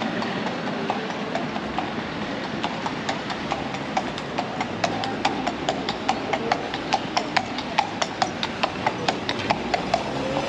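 Horse hooves clip-clopping on a paved street in a quick, even rhythm, growing louder from about halfway through as the horse approaches, over steady street background noise.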